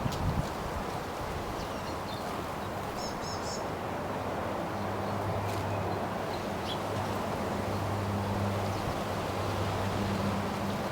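Wind blowing steadily, with a few brief high chirps from small birds, a short cluster about three seconds in. A low steady hum sits underneath through the middle.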